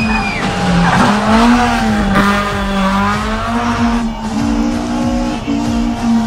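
Rally car engine revving hard and climbing in pitch as it accelerates, with tyres squealing through the bends.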